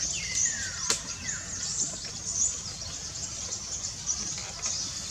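Outdoor chorus of insects and birds, chirping high and continuously with repeated short chirps. A falling call sounds near the start, and a single sharp click comes about a second in.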